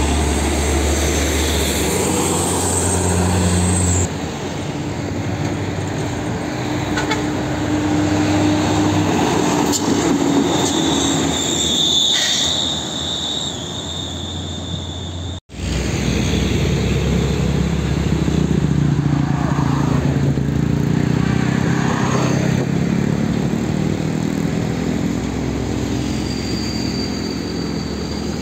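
Heavy diesel trucks driving past at close range: engines running with tyre and road noise, and a short high tone about twelve seconds in. The sound drops out for an instant about fifteen seconds in.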